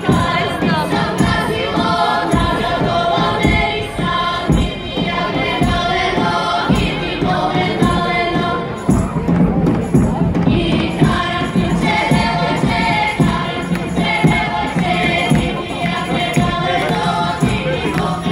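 A group of women singing a Balkan folk song together, accompanied by the beats of a large folk drum.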